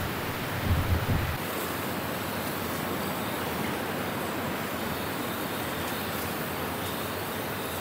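Strong wind blowing, a steady rushing hiss. For about the first second and a half there is low buffeting from gusts on the microphone, which stops abruptly.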